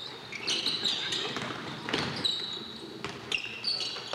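Basketball game on a gym court: the ball bouncing on the floor in sharp repeated knocks, with short high squeaks from sneakers and voices in the hall.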